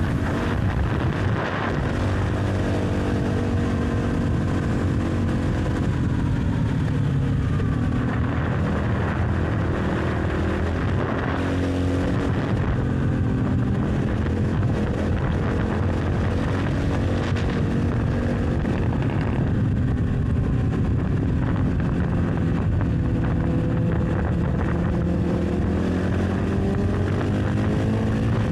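1998 Honda XR650L's single-cylinder four-stroke engine heard from on board while riding at speed, its pitch dropping and climbing again several times as the throttle and gears change.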